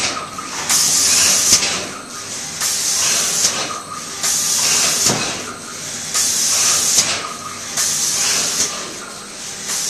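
Pneumatic spray guns of an automatic flatbed spray finishing machine hissing in repeated bursts of about a second each, roughly every one and a half to two seconds. The guns switch on and off as they spray lacquer or primer over MDF cabinet panels.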